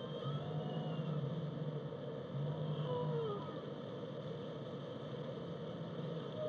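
Whale song, faint: two low, held moans under a steady hiss, with a few short high calls, one gliding down about three seconds in.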